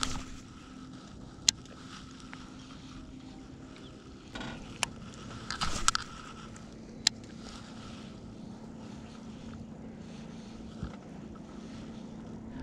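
Electric trolling motor on a small bass boat humming steadily, its pitch dropping slightly about four seconds in. A few sharp clicks sound over it.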